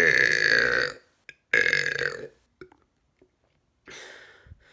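A man's deliberate, really loud burps: a long drawn-out one ending about a second in, then a second, shorter one, followed by a faint breathy noise near the end.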